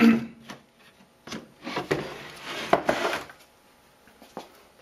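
Homemade OSB wooden case being opened by hand, its screw-pivot hinged sides swung down: rough wood scraping and rubbing for the first three seconds, then a couple of light knocks.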